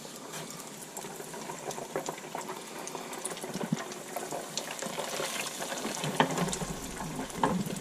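Hot oil in an electric deep fryer bubbling and sizzling with many small crackles as breaded whole pinfish are lowered into it. It grows a little louder over the seconds.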